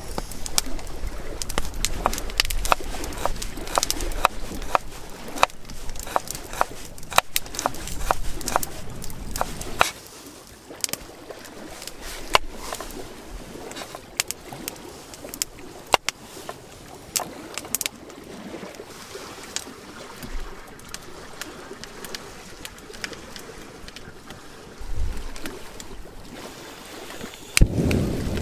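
Wood fire crackling with irregular sharp pops, over a low rumble of wind on the microphone that drops away about ten seconds in; a louder rush of noise starts near the end.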